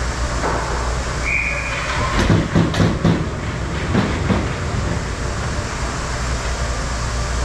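Hockey rink ambience: a steady low rumble throughout. About a second and a half in, a short high whistle-like tone sounds, followed by a flurry of sharp clacks and knocks from sticks and puck on the ice and boards.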